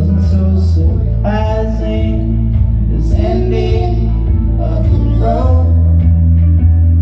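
Live acoustic-guitar and keyboard song over deep sustained bass notes, with a voice singing a line from about a second in until just past five seconds.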